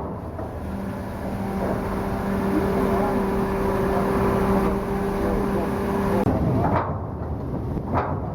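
Cargo ship's engine-room machinery running loudly during a sea trial. A steady low hum holds from about a second in until about six seconds in, and short sweeping sounds follow near the end.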